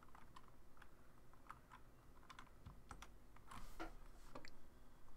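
Faint typing on a computer keyboard: irregular, quick key clicks as a line of code is entered.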